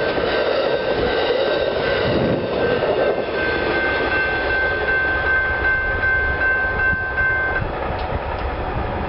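Amtrak California Zephyr passenger cars rolling past on the main line with a rushing rail noise. From about three seconds in, a steady high wheel squeal with several tones sounds for about four seconds, then the sound thins out as the last cars go by.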